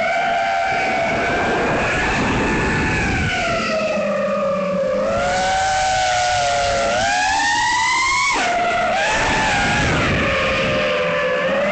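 FPV quadcopter's brushless motors and propellers whining, the pitch rising and falling with the throttle. The pitch climbs steadily for about a second near the middle, then drops suddenly, over a rush of wind noise.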